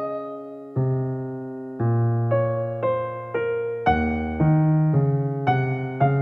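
Background music: slow, gentle electric piano playing single notes and chords, each one struck and left to fade.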